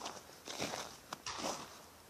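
Footsteps crunching in snow, a few steps at a walking pace.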